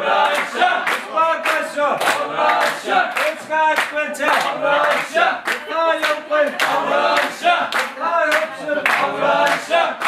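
A circle of people clapping hands in a steady beat, about two claps a second, while voices sing and call out together as accompaniment to an Abkhaz circle dance.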